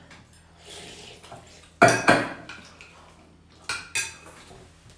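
Metal spoons and chopsticks clinking against porcelain soup bowls while eating noodle soup: scattered sharp clinks, the loudest a pair about two seconds in and another pair near four seconds.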